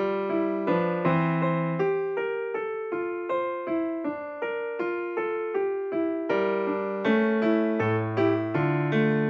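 Background keyboard music: a gentle piano melody played in a steady run of notes.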